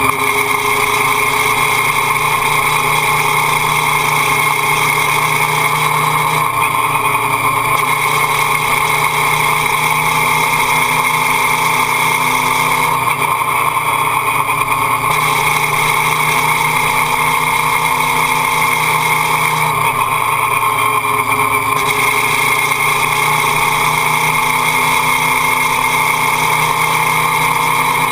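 Motorcycle engine running at steady revs over a constant rush of wind and road noise, picked up by a camera mounted low on the bike beside the footpeg.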